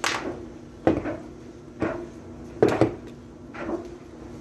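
Five hard knocks about a second apart, each with a short ringing tail: a glass candle jar being handled and bumped on a desk.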